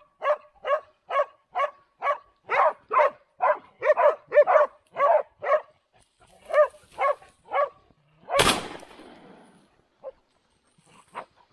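Hunting dog barking in a fast, steady run, about two to three barks a second, the kind of baying that hounds give on a found boar. About eight seconds in comes a single loud gunshot with a trailing echo, and a few more barks follow near the end.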